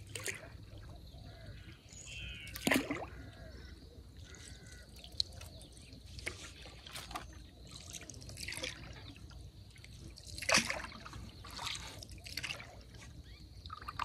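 Water trickling and splashing, with louder splashes every few seconds at uneven intervals.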